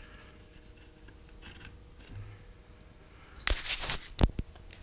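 Handling of a wooden pen frame and plywood door: faint rustling, then a short scraping rush about three and a half seconds in, followed by two sharp knocks, the loudest sounds.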